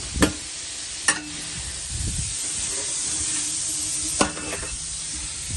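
The meat, tomato and vegetables of a paella sofrito sizzle in the pan with a steady frying hiss while they are stirred together. The utensil knocks sharply against the pan about a quarter second in, again about a second in, and once more near the end.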